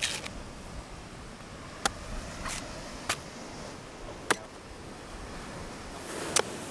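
Parang (machete) blade chopping into the husk of a green coconut to open it: six sharp chops at irregular spacing, the loudest near the end.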